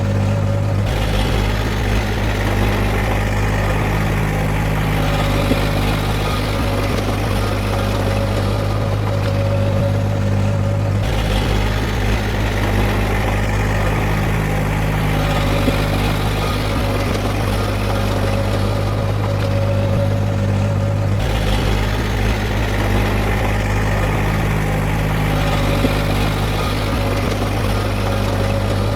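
Heavy diesel engine of earthmoving machinery running steadily with a deep hum. The sound repeats the same way about every ten seconds.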